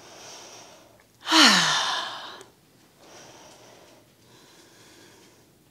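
A person breathing deeply while holding a balance pose: a soft breath, then a loud exhale about a second in that begins with a voiced sigh falling in pitch, then two softer breaths.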